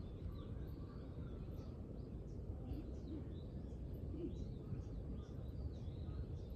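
Birds singing outdoors: many short chirps and twitters, one after another, over a steady low background rumble.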